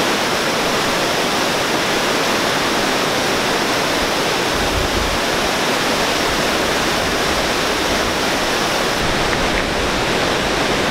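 Creek running high in whitewater rapids: a steady, loud roar of rushing water.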